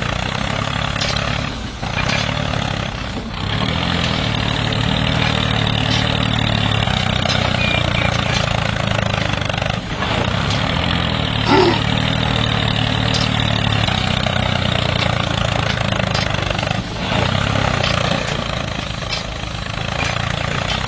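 An engine running steadily with a low hum and a rough hiss, briefly dipping a few times. A short squeak comes about eleven and a half seconds in.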